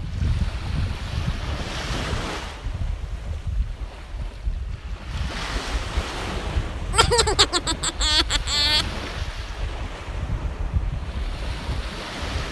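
Wind buffeting the microphone over waves washing against shoreline rocks, the surf hiss swelling and fading every few seconds. A short wavering pitched cry cuts in about seven seconds in and lasts under two seconds.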